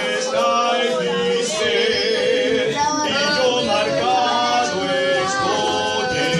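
A woman and a man singing a church praise song together, their voices holding long sustained notes.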